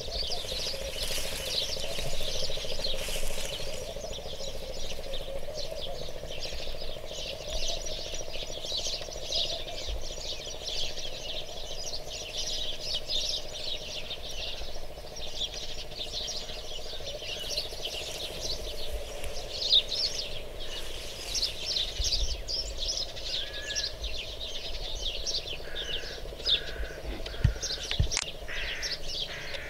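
Many small birds chirping in a dense, continuous chorus, with a steady low hum underneath and a few soft knocks.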